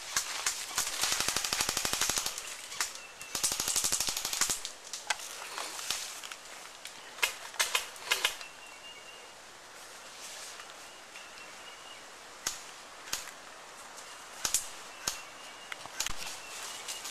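Airsoft guns firing: two rapid full-auto bursts, each about a second long, in the first few seconds, then scattered single sharp snaps of shots for the rest.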